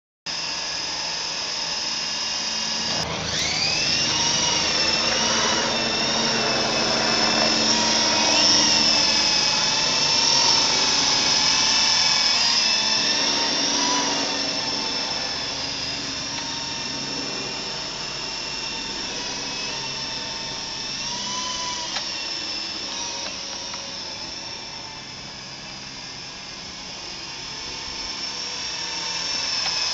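Flying Gadgets T43 coaxial remote-control helicopter in flight: a steady high-pitched whine of its small electric motors and geared co-axial rotors, the pitch wavering up and down as the throttle changes. It fades about three-quarters through as the helicopter moves away, then grows louder near the end as it comes back close.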